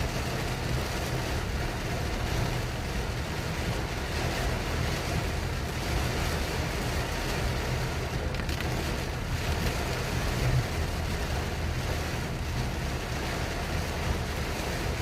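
Heavy rain falling in a strong wind, a steady hiss with low gusty rumbling of wind buffeting the microphone.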